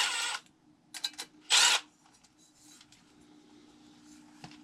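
Metal parts of a blower motor mount bracket being handled as it is taken apart: a short scraping burst, a few clicks, then a second scraping burst, over a faint steady hum.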